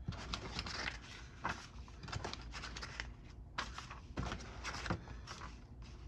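Cardboard box and paperwork being handled: irregular rustles and light knocks.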